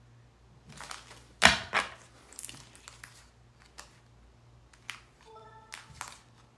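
Sharp clicks and snaps of tarot cards being handled on a table, irregular, the loudest about one and a half seconds in. A short pitched hum comes about five seconds in.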